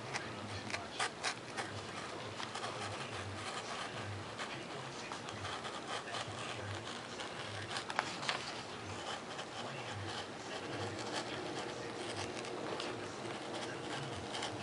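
Faint scraping and scattered light clicks of work on foam board and paper plans with an X-Acto knife, over a steady low hiss.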